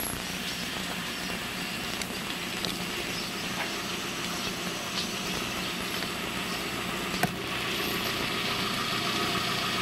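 An engine running steadily in the background under a constant hiss, with a single sharp click about seven seconds in.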